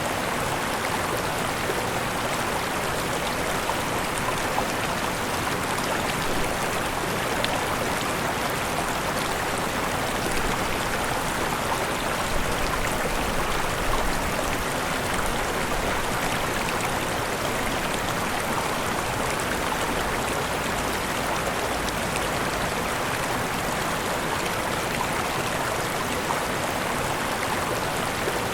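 Rushing water of a waterfall: a steady, even rush with no pauses or changes.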